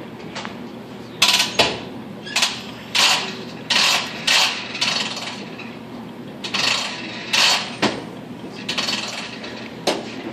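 Hands handling objects in a workshop: a run of short clicks, clatters and scrapes, several of them lasting about half a second to a second.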